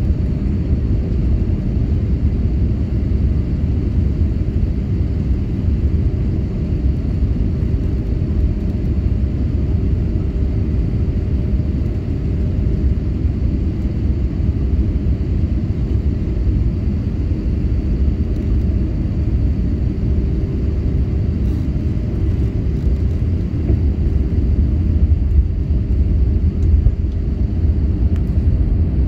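Steady cabin rumble inside an Airbus A320neo descending on approach, heard from a seat over the wing: airflow and its Pratt & Whitney PW1100G geared turbofan engines, with a few faint steady whining tones on top.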